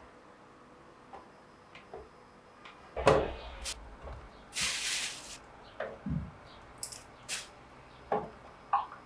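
Household objects being handled: a knock about three seconds in, a short hiss a second or so later, and scattered light clicks and taps.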